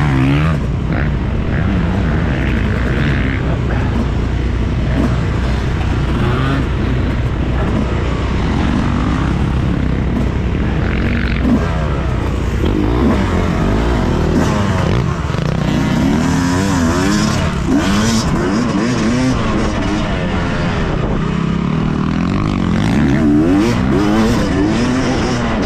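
Yamaha motocross bike engine heard from onboard while riding a dirt track, its pitch rising and falling again and again as the throttle is worked.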